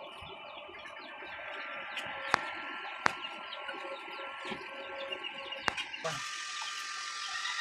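Stick (arc) welding on a rusty steel pipe and plate: a few sharp snaps as the electrode is struck, then about six seconds in a steady crackling hiss as the arc holds.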